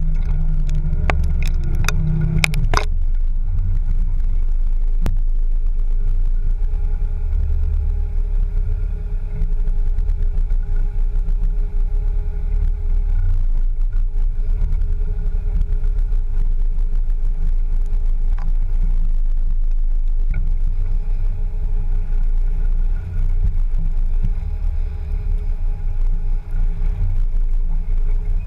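Land Rover Discovery 2 crawling over rough, stony off-road ground, its engine running steadily under a heavy low rumble. A few sharp clatters sound in the first three seconds.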